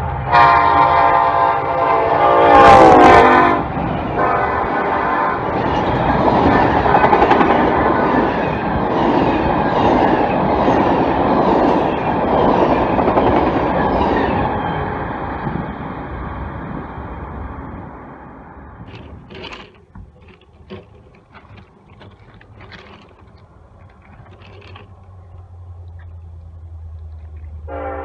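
Diesel locomotive horn sounding a chord, loudest about three seconds in. The train then passes with a loud rumble and steady wheel clicks over the rail joints. It fades away after about fifteen seconds, leaving a few faint scattered clicks.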